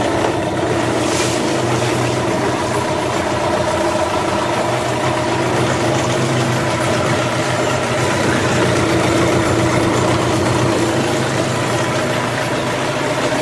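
A 15 hp two-stroke outboard motor running steadily in gear in a test barrel, its propeller churning the water.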